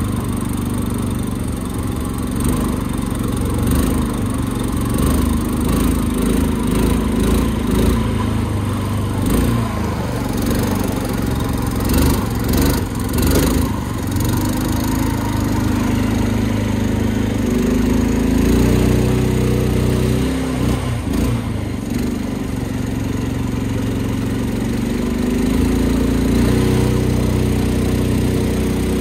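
Small boat outboard motor running steadily at low to moderate throttle, its pitch shifting slightly now and then, with a few brief rattles near the middle.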